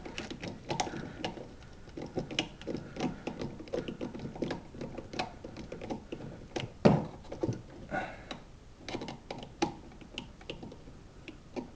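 Small scattered clicks and taps of a screwdriver tightening the terminal screw on a 15-amp electrical outlet, with one louder knock about seven seconds in.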